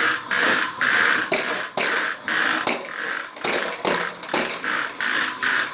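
Toy vacuum cleaner switched on and running, giving a rhythmic pulsing whoosh about three times a second.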